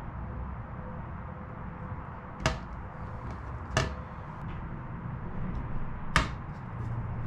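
Three sharp metal knocks with a brief ring, spaced about a second and then two and a half seconds apart, as a metal rule and square are set down and knocked against a bare aluminium wing spar. The last knock is the loudest. A low steady hum runs underneath.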